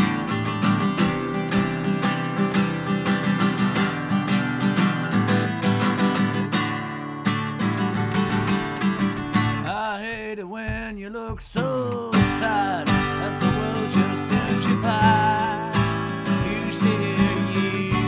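Acoustic guitar strummed in a steady rhythm. From about halfway through, a man's voice sings over it in long, wavering notes, with one falling glide.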